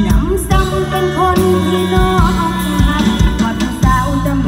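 Live Isan mor lam band music played loud through a concert PA: a steady drum beat, bass and a woman singing over the band.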